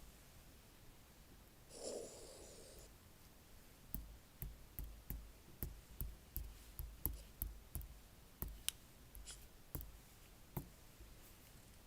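Light taps and clicks, roughly two a second for about six seconds, each with a soft low thump, like fingertips tapping and handling a tablet. A short breathy rustle comes before them, about two seconds in.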